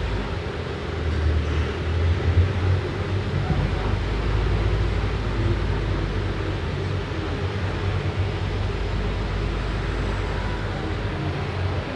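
Diesel engine of a Volkswagen 9-160 OD minibus running steadily with a deep, low-pitched sound, swelling slightly a second or two in.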